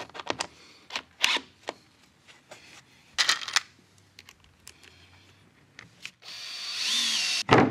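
Scattered clicks and taps of screws and a drill being handled, then a cordless drill driving a screw into a hickory runner for about a second and a half near the end. A sharp knock closes it.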